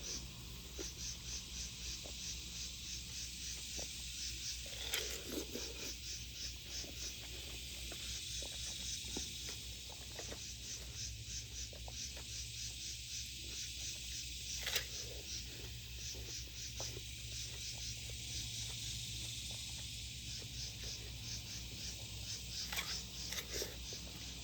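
Insects chirping in a steady rhythm, about three short high-pitched pulses a second, over a low steady hum, with a few brief clicks about 5, 15 and 23 seconds in.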